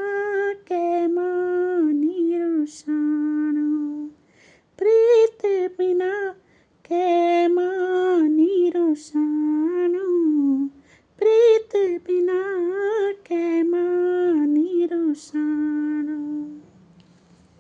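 A woman humming the melody of a Pahari folk song without words and without accompaniment, in three repeated phrases. She stops about a second before the end.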